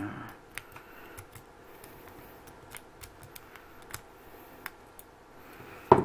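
A City Rake lock pick raking the pins of a trigger lock's small keyway under tension from a tension wrench, giving irregular light metallic clicks. A louder sharp knock comes near the end.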